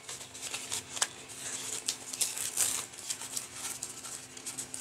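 A rolled diamond-painting canvas rustling and crinkling as it is handled and unwrapped: a string of light, scratchy rustles.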